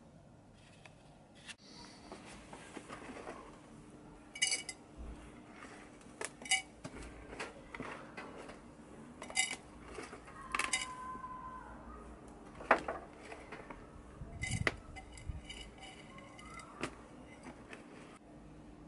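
Terracotta plant pots knocking and clinking against each other and a plastic potting tray, several sharp ringing clinks at irregular intervals, with hands scraping and rustling in potting compost between them.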